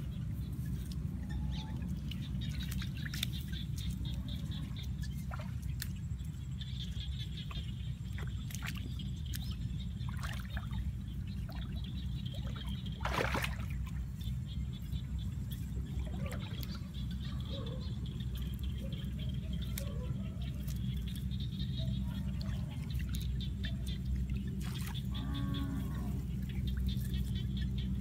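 Rice-field ambience: a steady low rumble with a high, fast chirping that comes and goes. Over it are scattered clicks, rustles of grass and small water splashes as a bamboo fish trap is handled and set in shallow muddy water.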